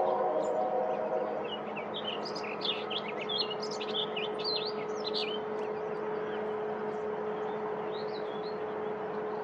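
Male orchard oriole singing a rapid, varied song of slurred whistles and chatter lasting about four seconds, starting about a second and a half in, with a short fainter phrase near the end. In the first second a droning sound with overtones fades out, over a steady low hum.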